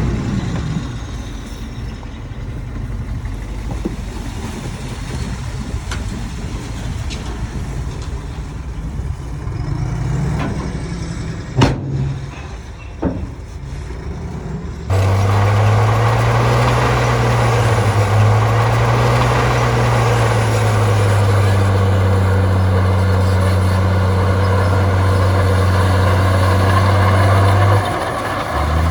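Heavy diesel engines of earthmoving machinery running. The first half is quieter, with a couple of sharp knocks. After an abrupt cut about halfway through comes a louder, steady, low diesel drone.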